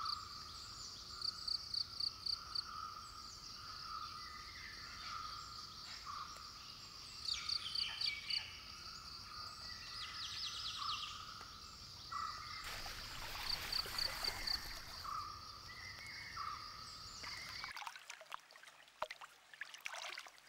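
Forest waterhole ambience: a steady high insect drone with short pulsed chirps, and a repeated mid-pitched animal call about once a second. A brief hiss of noise comes about two-thirds through, and near the end the ambience drops away to a few faint clicks.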